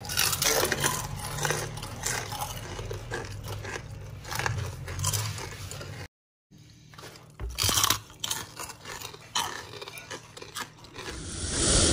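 Crisp chicharon (fried pork belly rinds) crunching as it is bitten and chewed, a quick, irregular string of crackly crunches, cut off briefly about six seconds in. A swelling rush of noise rises at the very end.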